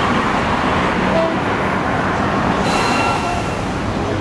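Steady street traffic noise, with a short high-pitched toot about two and a half seconds in.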